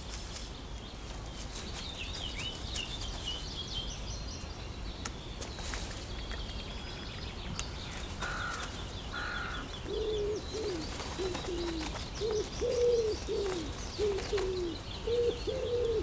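Woodland birdsong: thin high bird notes, then from about ten seconds in a run of short, low, falling coos from a dove, about two a second.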